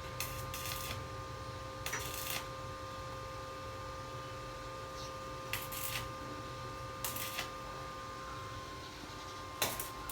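Construction work: a few short, irregular clattering and scraping noises, the sharpest near the end, over a steady hum.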